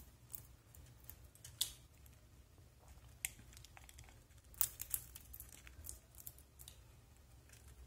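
Cockatiels pecking and cracking seeds from a plastic dish: irregular, sharp little clicks and crunches, a few louder ones among faint ones.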